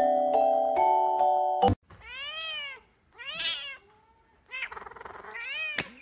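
A light chiming tune plays for about the first second and a half, then stops abruptly. A cat then meows three times, each call rising and falling in pitch; the third is the longest and starts rough.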